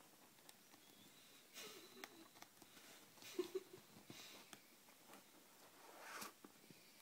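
Faint, soft breaths close to the microphone, three or so puffs with the last the strongest, over a few light rustles and clicks and a brief low hum about three and a half seconds in.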